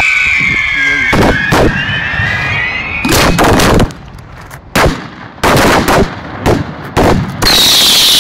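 Fireworks going off at close range: a falling whistle, then a quick string of sharp bangs with short quiet gaps between them. Near the end comes a loud continuous rush with another falling whistle.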